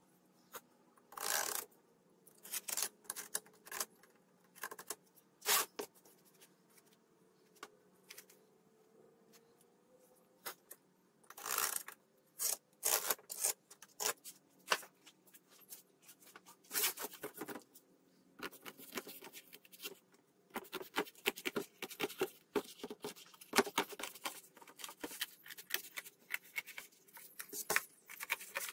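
Scattered short rubs, taps and scrapes of a wooden sieve rim and a wood block being set out on corrugated cardboard. About two-thirds of the way in, a rapid run of scissor snips cutting through corrugated cardboard.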